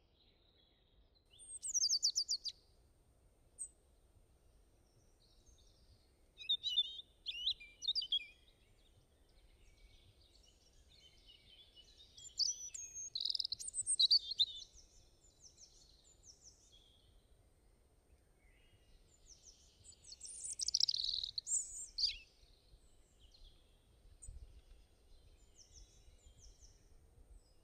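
Songbirds chirping and trilling in short, high-pitched bursts separated by pauses, over a faint low hum.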